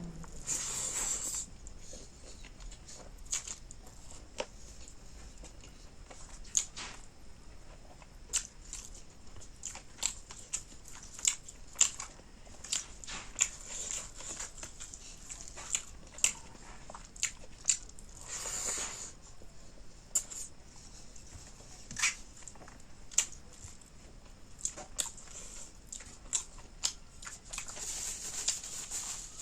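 Close-miked eating sounds of a person chewing fish curry: sharp wet mouth clicks and smacks about once a second, with a few brief breathy slurps.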